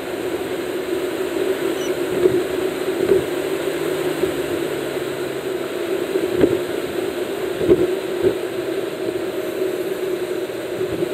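Steady engine drone and road noise from a vehicle cruising on a highway, heard from inside the cabin, with a few light knocks scattered through it.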